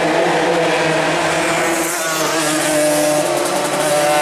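Several Suzuki Xipo two-stroke race motorcycles running hard at high revs, with one passing about two seconds in, its pitch falling.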